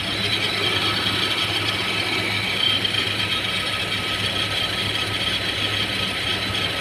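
Car engine idling with a steady, rapid mechanical ticking and rattling over a low hum. The owner reports a noisy engine fuel pump and a shaking engine, with fault codes P0190 and P1086 logged.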